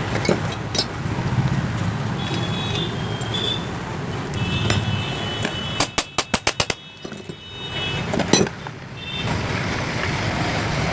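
Steady street traffic noise with short car-horn toots, and a rapid run of about eight sharp clicks around six seconds in, then a single knock a couple of seconds later.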